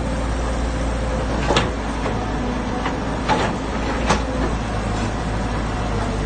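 Hydraulic excavator's diesel engine running steadily while it digs, with a few sharp clanks, about three, from the working bucket and arm.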